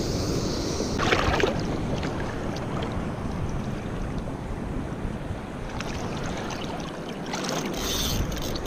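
Wind buffeting the microphone over the steady wash of surf, with a couple of brief louder gusts or swells about a second in and near the end.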